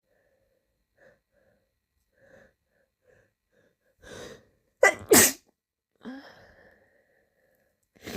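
A person sneezing: a few faint catches of breath, a breath in about four seconds in, then a loud sneeze in two sharp bursts about half a second apart, followed by a softer trailing sound from the voice. Another loud burst begins at the very end.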